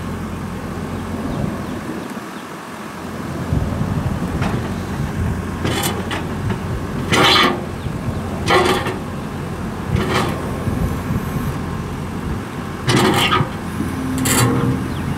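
A 2012 New Holland C232 high-flow skid steer's diesel engine running, with about six short, loud bursts of noise over it, spaced roughly a second or a second and a half apart, as the machine works.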